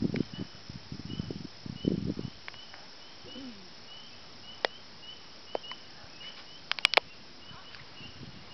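Night insects chirping, a short high chirp repeating about twice a second. Low rustling thumps come in the first two seconds, and a few sharp clicks about seven seconds in.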